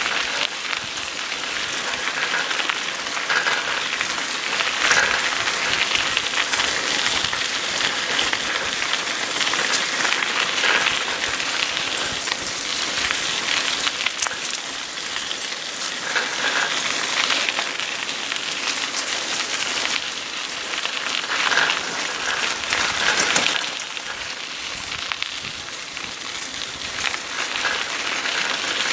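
Bicycle tyres rolling steadily over a gravel trail: a continuous gritty hiss that swells now and then.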